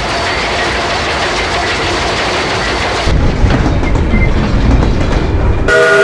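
Train rolling along the track, its wheels clacking over the rail joints. About three seconds in the sound changes to a deeper, heavier rumble. Near the end a steam whistle starts blowing, sounding several tones at once like a chime whistle.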